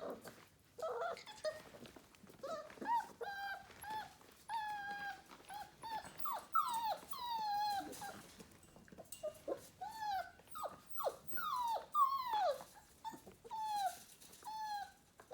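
Five-week-old pointing Labrador puppies whining and whimpering, a long string of short falling whines, sometimes two at once.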